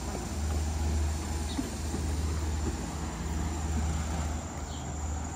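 Wind buffeting the microphone: a fluttering low rumble over a steady outdoor hiss.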